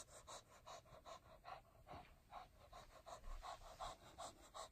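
Shih Tzu panting rapidly with her tongue out, about five short, faint pants a second, out of breath after a run of zoomies.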